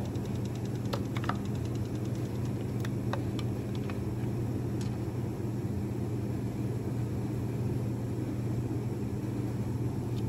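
A steady low mechanical hum, with scattered small clicks and taps of tool and gauge-hose handling in the first few seconds as a compression gauge is moved between spark-plug holes.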